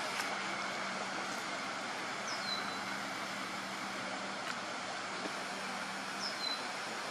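Steady background noise of distant traffic or machinery, with a faint low hum in the middle. A small bird gives a high whistled note that slides down and then holds, twice, a few seconds apart.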